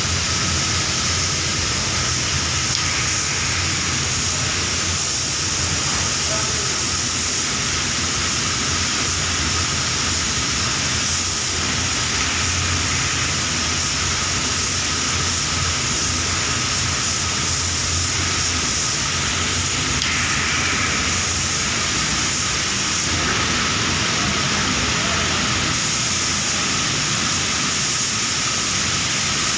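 Steady, even hiss of a paint spray booth while a compressed-air spray gun sprays clear lacquer.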